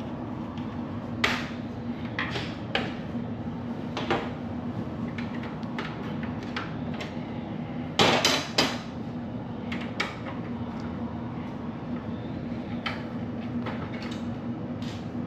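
Scattered clinks and knocks of plates and cutlery at a meal, loudest in a quick cluster about eight seconds in, over a steady low hum.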